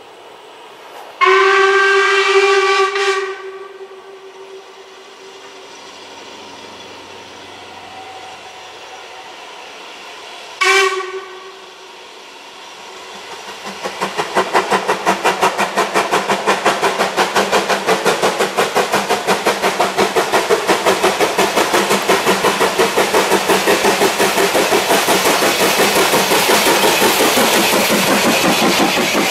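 A steam locomotive whistle gives one long blast about a second in and a short blast near the ten-second mark. Then LMS Ivatt Class 4 2-6-0 steam locomotive No. 43106 comes up working a passenger train, its rapid exhaust beats growing loud as it passes close by.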